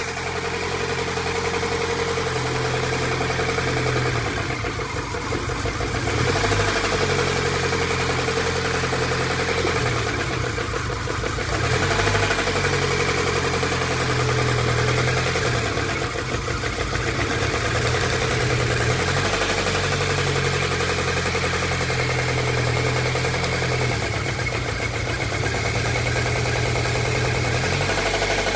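VAZ-21124 car engine running near idle with a knock, the revs rising briefly about three times.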